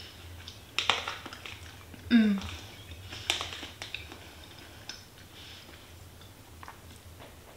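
Metal fork clicking and scraping against a plastic meal-prep container as food is scooped, with quiet chewing. A short hum falling in pitch comes just after two seconds.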